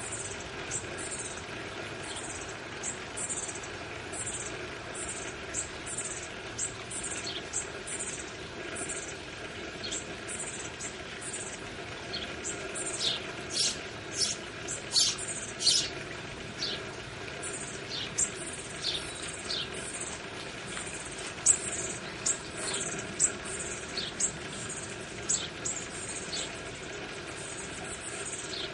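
Bushtits calling at the nest: a rapid stream of short, very high, thin notes, each sliding downward, growing louder in a busy cluster about halfway through, over a steady low background hum.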